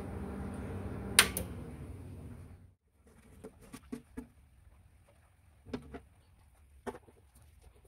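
RCX X-1504 four-channel power amplifier running with a steady hum and fan noise; about a second in, a sharp click as it is switched off, and the running noise fades out over the next second and a half. Then a few light clicks and taps as a screwdriver works the screws of its metal top cover.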